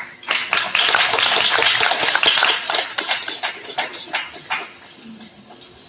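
Applause from a small crowd: dense clapping that thins out and fades away about four and a half seconds in.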